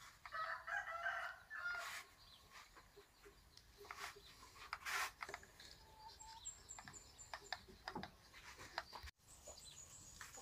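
A rooster crows once near the start, the loudest sound here. After it come faint scattered clicks and knocks, and a short run of high-pitched chirps about six seconds in.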